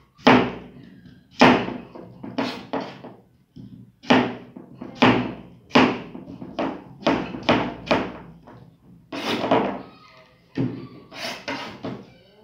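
Large kitchen knife cutting a potato into finger cuts on a plastic cutting board: a string of sharp, uneven knocks as the blade hits the board, about one or two a second, with a short pause near the end.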